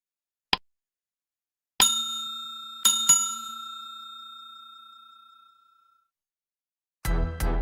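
A bell-like ding struck once, then twice more in quick succession about a second later, ringing on and fading slowly over a few seconds. Music starts near the end.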